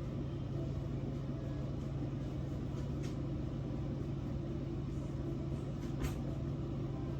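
A steady low mechanical hum, like a fan or an electrical appliance running, with a faint click about three seconds in and another about six seconds in.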